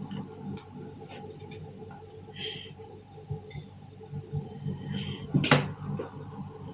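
Light clicks and short rattles of small plastic iron-on beads being picked out and handled on a table, with one sharper knock about five and a half seconds in.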